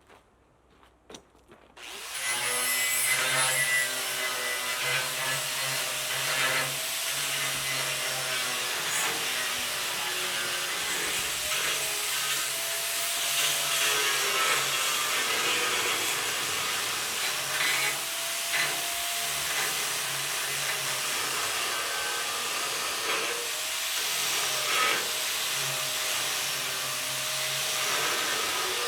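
A power tool running under load from about two seconds in, its motor pitch dipping and recovering again and again as it cuts or grinds.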